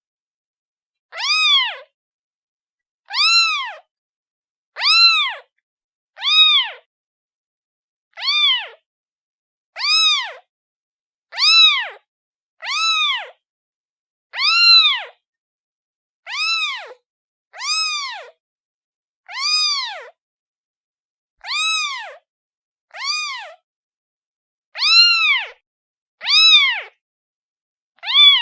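Kitten meowing over and over: short high-pitched meows, about one every one and a half seconds with silence between, each rising and then falling in pitch.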